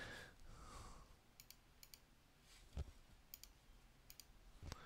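Near silence broken by a handful of faint, short computer mouse clicks.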